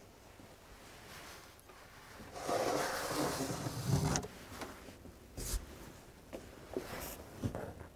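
Rustling of something being handled for about two seconds, followed by a few small, separate knocks and clicks.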